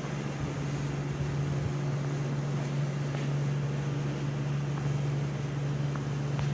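Steady low mechanical hum held at one pitch throughout.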